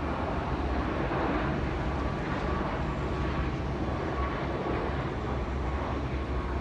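Jet engines of an airliner on final approach with its landing gear down: a steady rumbling noise with no sudden changes.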